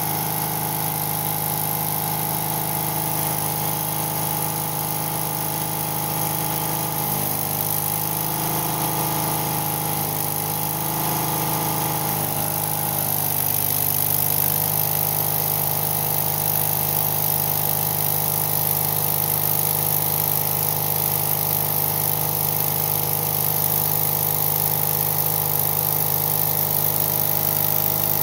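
Engine of a Miller engine-driven welder running steadily. From about halfway through, the crackling hiss of a stick-welding arc joins it as the rod burns against the steel plate.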